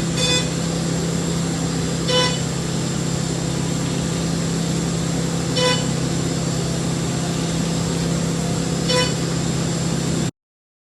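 CNC milling machine running a toolpath on the faceplate stock, a steady hum with a high whine and hiss. Four times a brief ringing tone rises above it.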